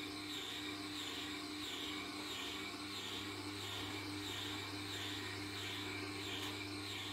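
Tormek sharpening machine running with a steady motor hum while a knife edge is honed on its CW-220 composite wheel, the chromium-oxide honing stage. A high hiss rises and falls evenly about one and a half times a second.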